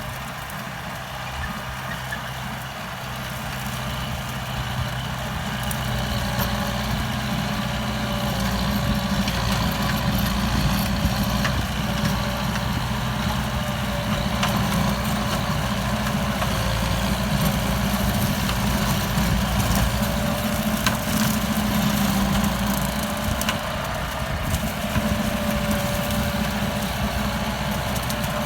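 Kubota M9540 tractor's four-cylinder diesel engine running steadily while rotary tilling, growing louder over the first several seconds and then holding.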